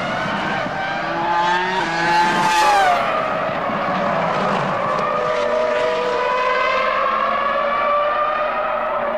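Ferrari F2003-GA Formula 1 car's 3.0-litre V10 running at high revs. Its pitch falls about three seconds in, where it is loudest, then climbs steadily as the car accelerates.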